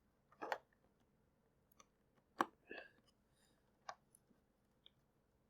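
Scattered faint clicks and taps of the plastic parts of an opened Xbox 360 controller being handled, five or so, the sharpest about two and a half seconds in.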